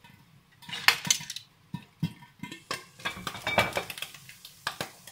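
Kitchen clatter: a glass pan lid lifted off a frying pan and set aside, with a series of sharp knocks and clinks of cookware and a measuring cup being handled, the loudest knock about a second in.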